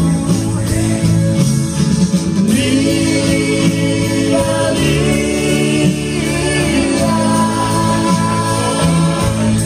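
A small live band playing a song: a lead singer singing into a microphone over guitars and bass guitar, with bass notes changing every second or so.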